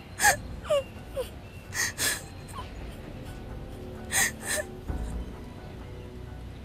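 A woman sobbing: short falling whimpers in the first few seconds and sharp, sibilant gasping breaths, the last of them about four seconds in. Soft background music with sustained tones plays underneath.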